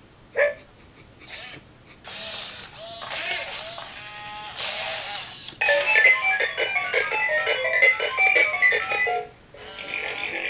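i-Cybie robot dog's built-in sound effects: a short synthesized bark, a few seconds of noisy whirring, then a quick beeping electronic tune.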